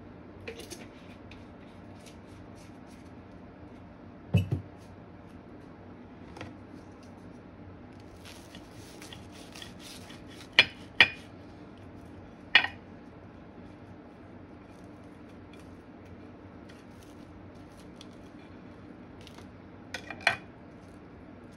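A table knife cutting through a crisp grilled cheese sandwich on a ceramic plate: faint crackling ticks from the toasted bread, then three sharp clinks of the blade against the plate, and two more near the end. A dull knock comes about four seconds in.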